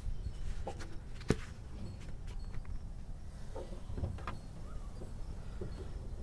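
Low steady rumble with a few light clicks and knocks, the sharpest about a second in: a phone being handled close against a car's open engine bay.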